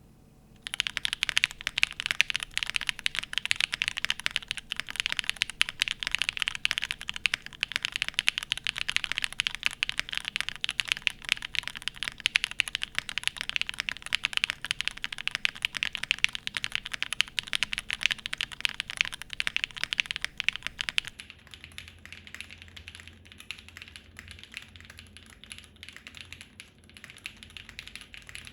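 Continuous fast typing on a TKD PT.1/75 top-mount mechanical keyboard with stock Gateron Deepping switches and SW Beige keycaps, a deep, "nutty" clacking. About three quarters of the way through, the recording changes to a phone's microphone, and the typing turns quieter and thinner over a faint hum.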